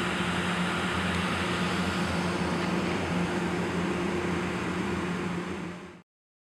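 Engine-driven dewatering pump running steadily: an even mechanical drone with a constant low hum, which cuts off near the end.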